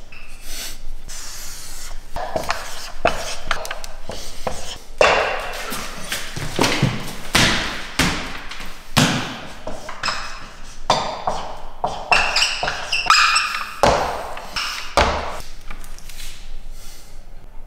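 Marker pen writing on a whiteboard: a string of irregular taps and strokes with short squeaks, mixed with knocks and thuds.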